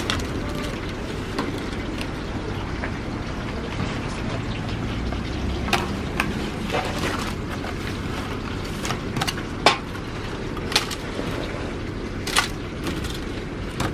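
Metal serving tongs clicking against a stainless-steel serving pan and aluminium foil trays while fried food is picked up and packed: a few short sharp clicks, one near the middle the loudest, over steady low background noise.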